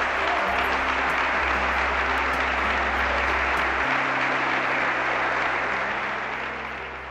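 Audience applauding, fading out near the end, with background music's low notes underneath.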